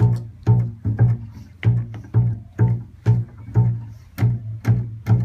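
Upright double bass plucked alone in a steady walking line, about two notes a second. Each note starts with a sharp click and rings low.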